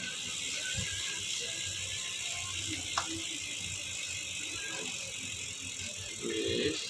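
Bicycle drivetrain turned by hand on the stand: the chain runs steadily through the freshly refitted rear tensioner pulleys. There is one sharp click about three seconds in.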